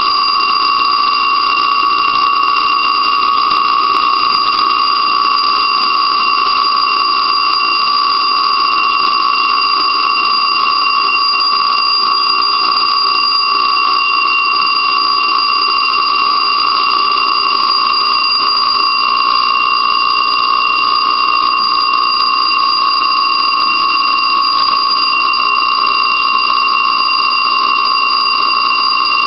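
Blazing Sevens slot machine's jackpot bell ringing steadily without a pause, signalling a three-sevens jackpot that has to be paid by an attendant.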